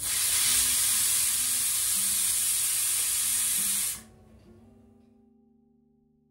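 Aluminium stovetop pressure cooker whistling: a loud, steady hiss of steam escaping through the weight valve, showing the cooker is at full pressure. It stops abruptly about four seconds in.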